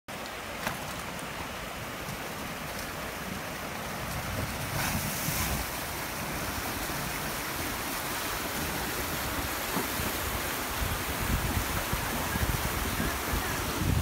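Steady rush of water from a shallow, stony river, with wind buffeting the microphone, gustier toward the end.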